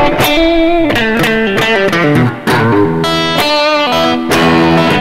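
PRS SE electric guitar with a roasted maple neck, on its middle pickup position, played through a Roland Cube amp with overdrive and reverb: a quick melodic lick of single notes with a crunchy tone. The middle position sounds fresh.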